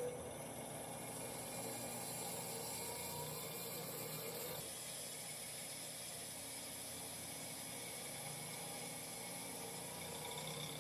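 CNC lathe turning a brass part under flood coolant: the steady splash and hiss of coolant spraying over the spinning work, with a faint machine whine underneath. The sound changes abruptly about four and a half seconds in.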